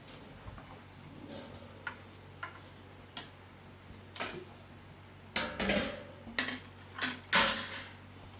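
Scattered clinks and knocks of hard objects being handled, with a run of louder clatters from about five to seven and a half seconds in.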